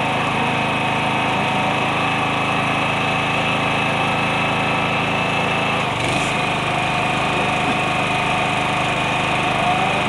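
A small engine or motor running steadily, its tone shifting slightly about six seconds in.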